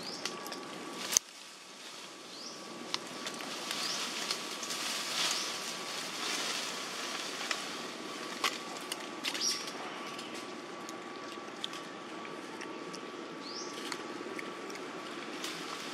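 Outdoor ambience: a steady hiss with a thin steady tone, short rising chirps every few seconds, and a few sharp clicks. The loudest is a single click about a second in.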